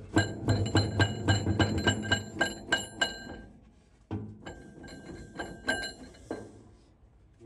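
Metal being struck with a hammer, about three blows a second, each ringing at the same bright metallic pitch. There are two runs: the first is about a dozen blows, then a short pause, then a second, lighter run.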